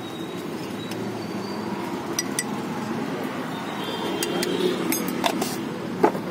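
Drinking glasses clinking and knocking a few times as they are handled on a metal counter, over steady background noise.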